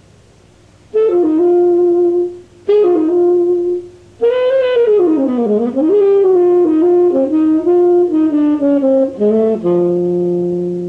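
Solo saxophone playing: two short held notes that each slide down into pitch, then a longer run of notes that swoops down and back up and settles on a long low note that slowly fades.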